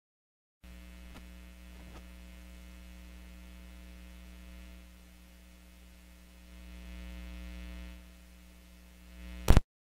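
Steady electrical mains hum with a stack of overtones, heard where the lecture audio has dropped out. It comes in after a moment of dead silence, and a sharp click near the end cuts it off.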